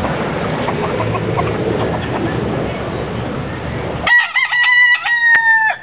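Rooster crowing once, loud and drawn out, starting about four seconds in and ending with a falling tail. Before the crow there is steady background noise with a few faint short clucks.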